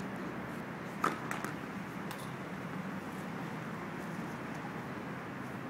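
Tennis ball taps: one sharp tap about a second in, then a few fainter taps, over a steady low background hum.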